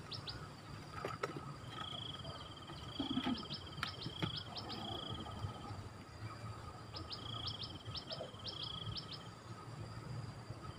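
A songbird singing a repeated phrase of quick high notes and short buzzy trills, in three bursts a few seconds apart, over a steady low rumble. A few faint clicks come through as well.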